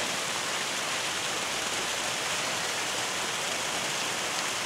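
Steady, even hiss of falling water, constant throughout with no distinct drops or strokes.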